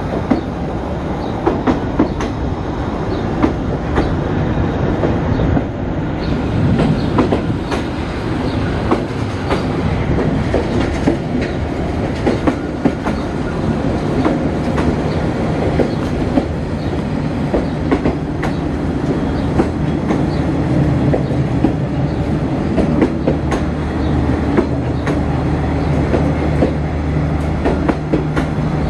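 Train cars rolling along the track, the wheels clicking over rail joints in a long run of sharp knocks over a steady rumble. A low steady hum comes in during the last several seconds.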